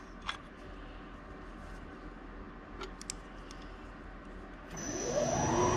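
A few light metallic clicks and ticks as a workholding clamp on the milling machine table is tightened, then about three-quarters of the way through a machine sound starts, a steady high whine with a hum that rises and falls in pitch.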